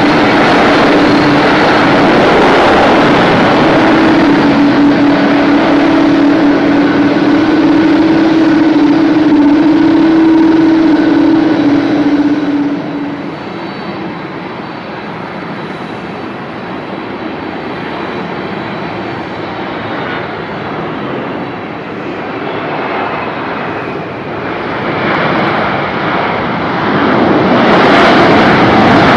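Jet airliner engines running loud, with a steady droning tone for the first dozen seconds. The sound then drops away to a quieter rumble before swelling loud again near the end.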